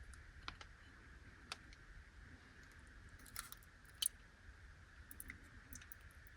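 Faint, scattered clicks and taps from handling the packaging of a small Anpanman fruit jelly, the loudest about four seconds in, over a steady low hiss.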